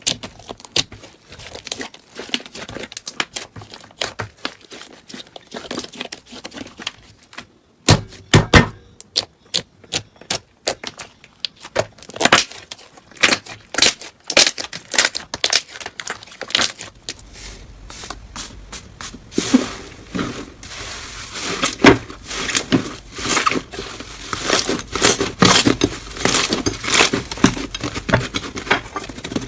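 Hands squeezing and poking slime, giving a dense run of sticky clicks and crackles. About halfway through, the clicking grows denser and louder over a low hum.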